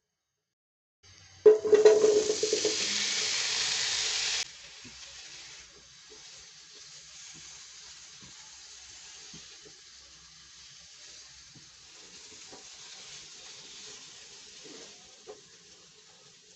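Boiled potato cubes frying in a little hot oil in a nonstick pan: a loud sizzle starts about a second and a half in and cuts off sharply about three seconds later. A softer steady sizzle follows, with light taps of a silicone spatula as the potatoes are stirred.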